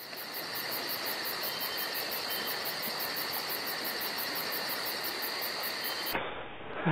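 Insects chirping steadily in a fast, even pulse of about five chirps a second, with a constant high ringing tone underneath; it stops about six seconds in.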